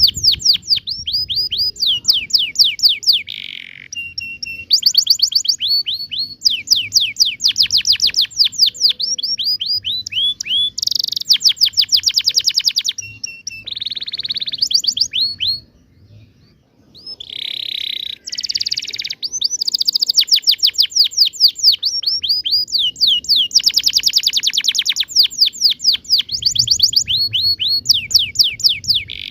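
Domestic canary singing a long song of fast rolling trills, rapid runs of repeated high chirps, phrase after phrase, with a short break about halfway through.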